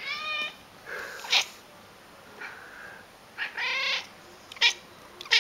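Tabby cat meowing twice, with a few short sharp sounds between the meows, asking for the tuna it is being offered.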